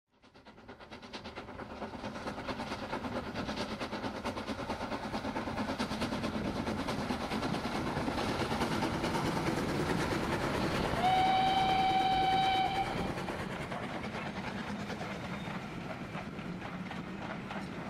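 Steam train running, its rhythmic noise fading in over the first couple of seconds, with a single steady whistle blast of about two seconds about two-thirds of the way through.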